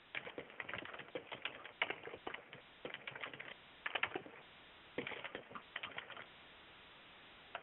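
Typing on a computer keyboard: quick runs of keystrokes with short pauses, stopping a little after six seconds in.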